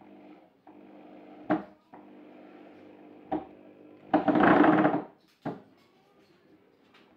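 A cordless drill drives into a wooden cabinet top in one loud burst of about a second, about four seconds in. A few sharp knocks come before and after it, over faint background music.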